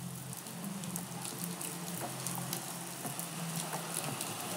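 Rain falling: a steady hiss with irregular drips and taps of raindrops.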